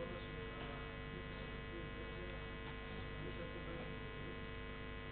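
Low, steady electrical mains hum made of several constant tones, picked up through the lectern microphone and sound system.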